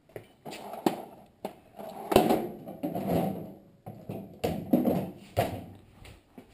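Hand tools clattering in a metal tool-chest drawer as it is rummaged through for a small hammer: a string of sharp knocks and rattles.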